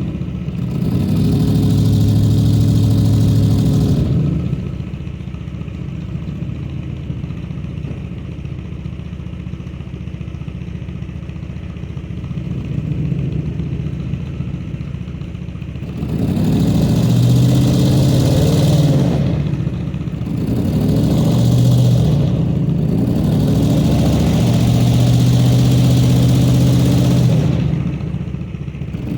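The engine of the 4.6-litre four-wheel-drive Honda Accord is revved and held under load for a few seconds, drops back to a steady idle for about twelve seconds, then is revved again in three spells of a few seconds each with short dips between, as the car strains to pull a backhoe.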